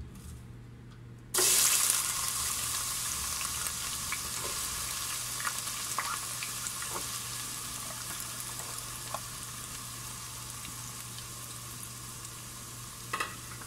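Chopped onions dropped into hot coconut oil in a pot: a sudden loud burst of sizzling about a second and a half in, settling into a steady frying sizzle with scattered pops. A short knock near the end.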